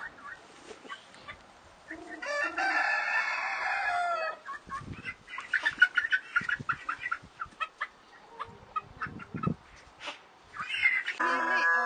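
A rooster crows once, a call of about two seconds beginning about two seconds in, followed by chickens clucking in short bursts. Another crow starts near the end.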